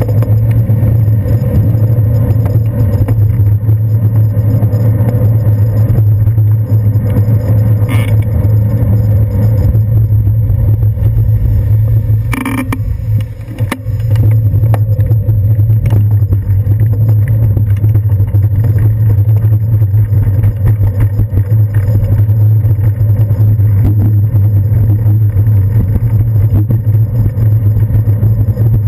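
Ride rumble from a bicycle's handlebar-mounted GoPro Hero 2 in its housing: a steady low hum with road and wind noise. There is a sharp knock about twelve seconds in.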